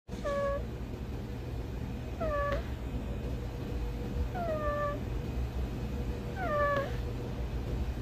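A cat meowing four times, about every two seconds, each meow short and falling in pitch, over a steady background hum.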